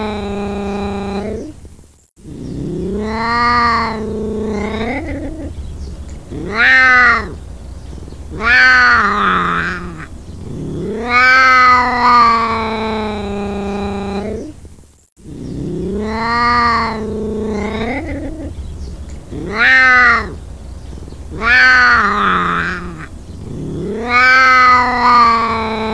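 A cat meowing and yowling: a string of long, drawn-out calls, each rising then falling in pitch, some under a second and others about three seconds long. The same run of calls repeats about halfway through.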